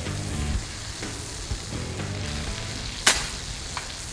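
A single sharp shot from a suppressed FX Impact M3 800mm .22 PCP air rifle, firing a 34-grain slug, about three seconds in, followed by a faint tick. A steady hiss runs underneath, with music fading out in the first half.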